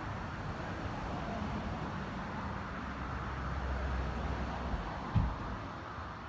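Steady low rumble and hiss of outdoor background noise, with one short dull thump about five seconds in.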